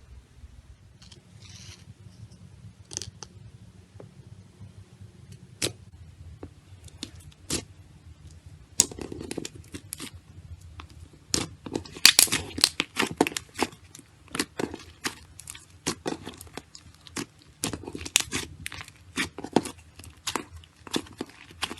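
Slime being squeezed and pressed by hand, giving sharp crackling clicks and pops: a few scattered ones at first, then coming thick and fast from about nine seconds in.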